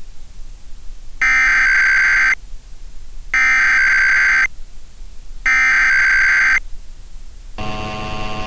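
Emergency Alert System SAME header: three identical bursts of data tones, each about a second long and a second apart. Near the end they give way to a steady alert tone, the start of the EAS attention signal.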